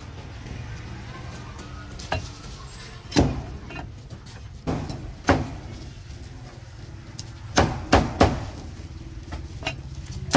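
Heavy meat cleaver chopping roasted meat on a thick round wooden chopping block: about eight sharp chops at uneven spacing, with a quick run of three near the end. A steady low hum runs underneath.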